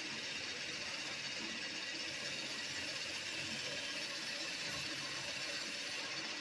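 Bench drill running steadily with an even hissing whir, its chuck spinning a pencil that bores into a bar of washing soap.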